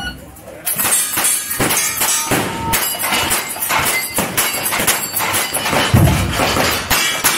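Rapid gunfire from a lever-action rifle at a cowboy action shooting stage, the shots coming in quick succession from a little under a second in. About six seconds in comes the loudest shot, as the shooter switches to his single-action revolver. Background music plays under the shots.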